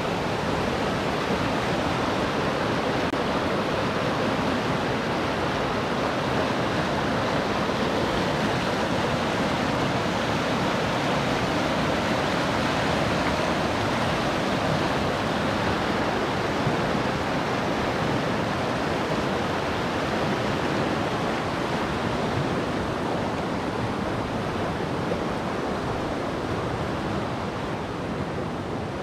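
Whitewater of the Langinkoski rapid on the Kymi river rushing in a steady, full noise, growing a little softer near the end.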